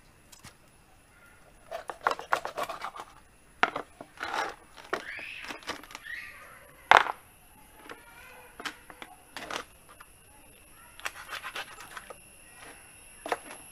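Kitchen knife cutting up a whole raw chicken on a plastic cutting board: clusters of scrapes and taps, with one sharp chop about seven seconds in.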